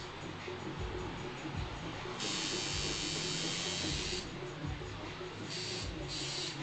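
Spray bottle hissing: one long spray of about two seconds, then two quick short sprays near the end. A faint low steady hum runs under it.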